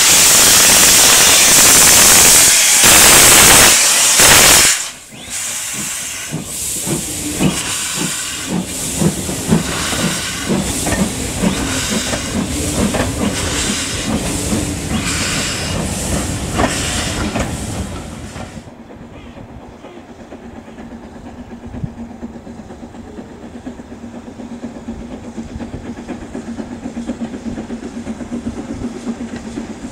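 Two steam locomotives, BR Standard 4MT tank 80078 leading, move off with a loud hiss of steam from their open cylinder drain cocks. Then comes a steady clatter as the coaches roll past over the rail joints. About two-thirds through, the sound drops abruptly to a quieter, distant train running.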